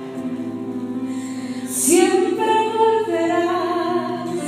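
Music with steady held instrumental tones; about two seconds in a woman's singing voice comes in loudly, holding long notes that step from one pitch to the next.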